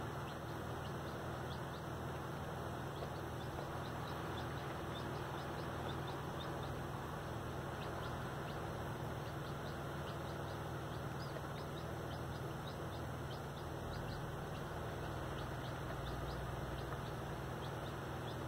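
Baby chicks peeping: many short, high chirps, each falling in pitch, coming irregularly over a steady background hiss.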